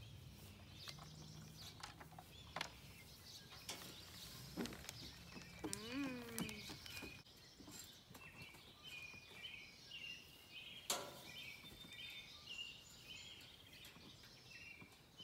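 Faint scattered clicks and clinks of wire being worked onto a steel round bale feeder, the sharpest about eleven seconds in, over birds chirping. A brief wavering cry comes about six seconds in.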